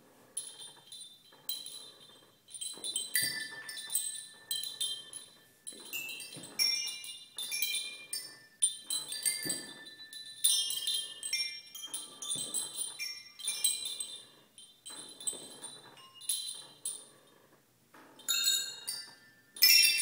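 Musical swing installation: the rods hanging beneath the swinging seat clink against each other and ring in bright chime-like clusters, one burst with each pass of the swing, roughly every second and a half.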